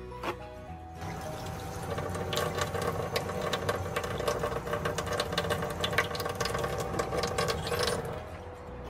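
Kitchen faucet running into a stainless sink for about seven seconds, water splashing over a paper towel held in the stream, then shut off near the end. A couple of sharp crinkles of the paper towel just before the water starts.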